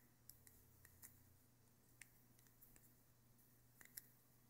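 Near silence with a faint low hum and a few faint, scattered small clicks from hands handling and tightening a small metal cartomizer punch; the piercing itself makes no clear sound.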